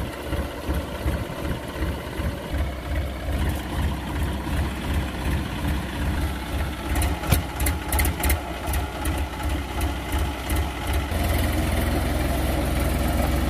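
Farm tractor's diesel engine running at idle with an uneven low throb, then speeding up and holding steady and louder about eleven seconds in as the tractor drives its cultivator out of the mud. A few sharp clicks sound around the middle.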